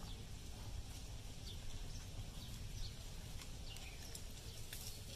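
Faint outdoor background: a steady low rumble with scattered faint high chirps and a few light ticks.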